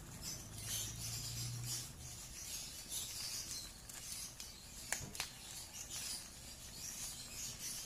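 Faint crinkling and rubbing of a plastic tomato sauce pouch as it is squeezed out by hand, with two light clicks about five seconds in.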